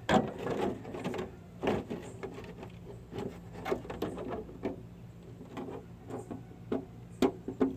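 Plastic body shell of a Hobao Hyper GT nitro RC car being handled and pressed down onto its chassis: a string of irregular clicks, knocks and plastic rubbing, with a snug fit.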